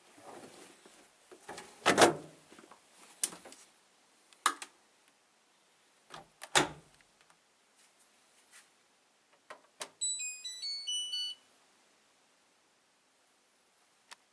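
A few knocks and clicks from handling a clothes dryer, then, about ten seconds in, a short electronic tune of quick beeps of changing pitch from its control panel.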